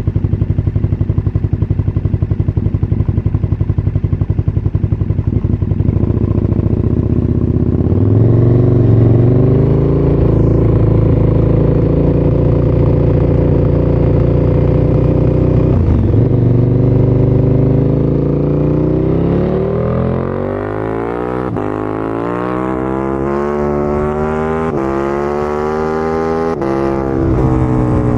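A KTM 1290 Super Duke R's V-twin engine, breathing through an Akrapovič titanium slip-on and a decat pipe, runs at low revs with a lumpy, pulsing beat. About 8 seconds in it rises to a steady higher note. In the second half it accelerates hard through several gears, with a sharp brief cut at each upshift made by the MCE quickshifter, and the revs drop near the end.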